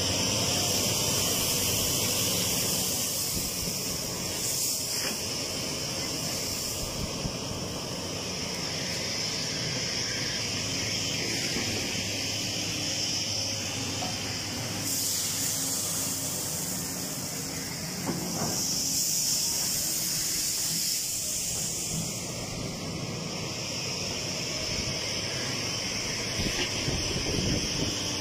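Steady hissing noise over a low engine hum from a material handler excavator at work.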